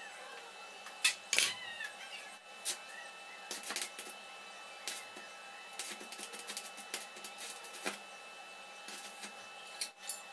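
Scattered clinks and knocks of steel tubing and hand tools being handled and set down on a concrete floor, the loudest about a second and a half in. A faint steady hum runs underneath.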